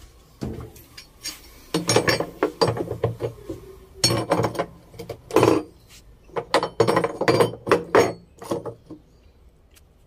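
A hammer striking a steel spanner wrench on the center nut of an LG top-load washing machine's wash tub, tapping it clockwise to tighten the nut onto the drive shaft. Many sharp metallic clinks come in irregular runs and stop about a second before the end.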